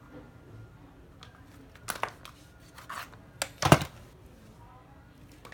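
A handful of hard plastic clicks and knocks as cordless drills and their batteries are handled. The loudest is a thump about three and a half seconds in.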